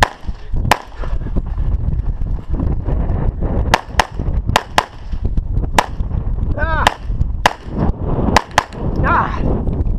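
Pistol shots from a .40 S&W EAA/Tanfoglio Witness Elite Match: about ten shots, one less than a second in, then a fast run from about four seconds in, several fired in quick pairs. A steady low rumble runs between the shots.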